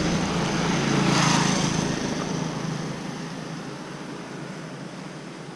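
A motorcycle passing close by, loudest about a second in, then fading away, over a steady low engine hum.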